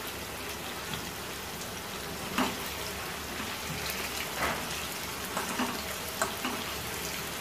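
Marinated mutton pieces shallow-frying in hot oil and ghee on a medium flame: a steady sizzle with scattered crackles, a few louder than the rest, as the meat browns.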